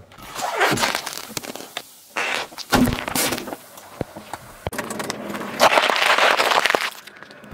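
A car tyre rolls over an aluminium soda can standing in an inflatable ring, crushing it with sharp cracks and bursting it. Later a pile of small sweet peppers crunches under a car tyre, with loud crackling.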